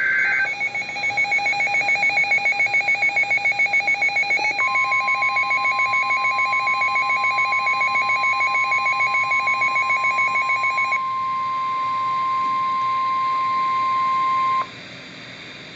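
Emergency Alert System alert: the tail of a SAME digital header burst, then a fast pulsing electronic alert beep. About four and a half seconds in, the steady 1050 Hz NOAA Weather Radio warning alarm tone joins it. The beeping stops about eleven seconds in, and the long tone cuts off abruptly near the end, leaving radio hiss.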